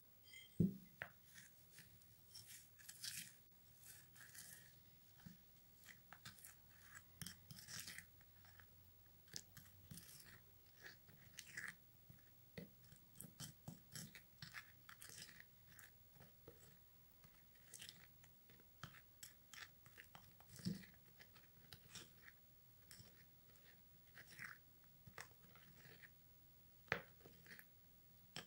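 A plastic spatula stirring instant coffee into a thick henna paste in a small glass bowl. It gives faint, irregular scrapes and clicks against the glass, with a few sharper knocks about a second in and near the end.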